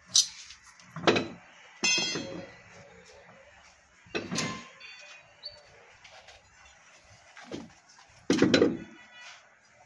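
A series of separate knocks and clunks at irregular gaps. One about two seconds in rings briefly with a metallic tone, and the loudest comes near the end.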